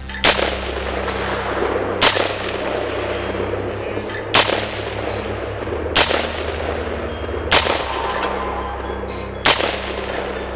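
Six single shots from an AR-15-style carbine, fired one at a time at an uneven pace of roughly one every one and a half to two seconds, each crack followed by a long echoing decay.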